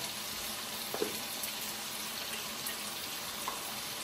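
Pork frying in soy sauce in a wok, a steady sizzle, with a few light clicks as jars and containers are handled about a second in and again near the end.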